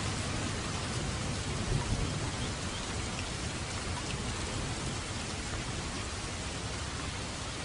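Steady rain falling, an even hiss of drops. A low rumble of thunder dies away over the first couple of seconds.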